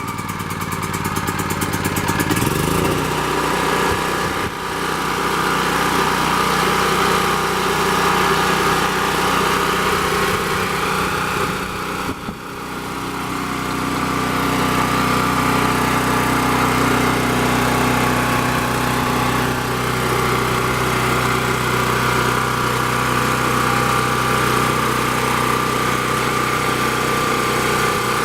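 Champion 3500-watt portable generator's 196cc single-cylinder four-stroke engine running, just started on the first pull with the choke on after sitting unused for about two months. Its speed rises a couple of seconds in, the sound dips briefly about twelve seconds in, and then it runs steadily.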